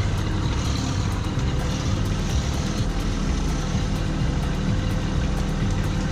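Kubota B2601 compact tractor's three-cylinder diesel engine running steadily under load while its front-loader grapple works a pile of brush.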